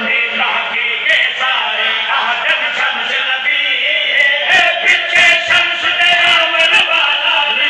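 Several men chanting a Shia mourning recitation together in loud unison through a PA microphone.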